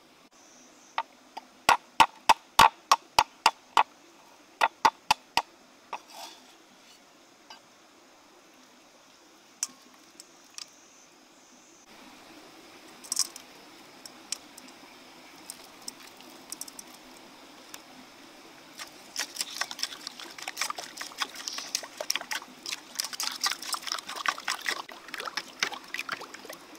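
A quick run of about a dozen loud, sharp clicks in the first few seconds. From about two-thirds of the way in, a wooden spoon stirs and scrapes a liquid egg, chili and garlic mixture in a wok, with wet sloshing and crackling.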